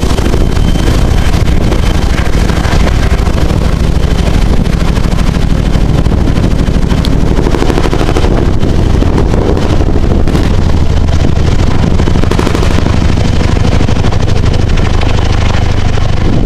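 Tandem-rotor helicopter flying low overhead with a water bucket on a long line, its rotors beating in a loud, rapid thudding over a steady turbine whine.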